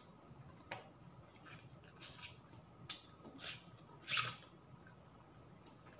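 Close wet mouth sounds of eating by hand: lip smacks and sucking on fingers, in about five short bursts.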